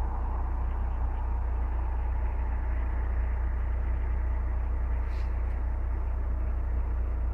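Steady low rumble under an even hiss, without change, with no calls from the starlings.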